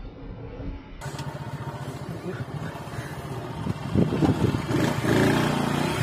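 Motorcycle engine running while riding along a road. It comes in suddenly about a second in and grows louder from about four seconds in.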